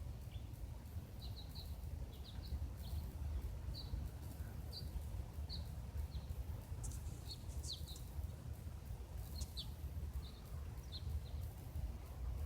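Small birds chirping in short, scattered notes, over a steady low rumble.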